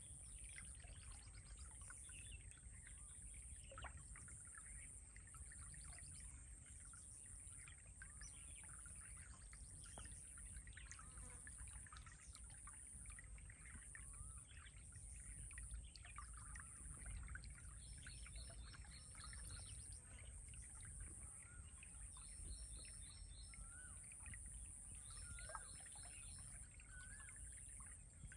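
Faint birdsong: scattered chirps and short rising calls, and from about two-thirds of the way in, a short rapid trill repeated every few seconds. A low steady rumble runs underneath.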